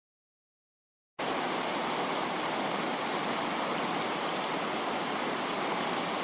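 Static hiss, like white noise, starting suddenly about a second in out of dead silence and holding at one even level: a noise sound effect under the channel's logo intro.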